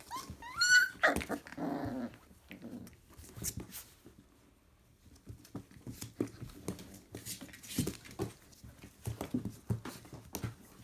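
Four-week-old Labrador retriever puppies play-fighting: a sharp rising yelp about half a second in, then a lower whine, followed by scuffling with short whimpers and small growls. The yelp is the cry of a pup bitten too hard by a littermate, since pups this young have not yet learned bite inhibition.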